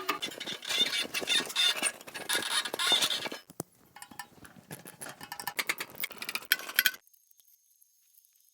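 Forage cutter running with a dense metallic rattling and clinking. It eases to lighter clicking after about three and a half seconds and cuts off abruptly about seven seconds in.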